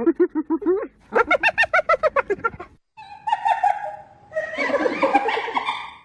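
Hyenas giggling: quick runs of pulsing, laugh-like calls, each note rising and falling in pitch, about eight a second. After an abrupt cut just before halfway, a rougher, denser stretch of overlapping calls follows.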